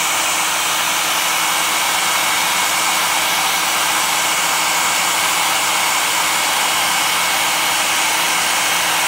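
Red Hot handheld hairdryer running at a steady speed, an even rush of air with a faint steady whine.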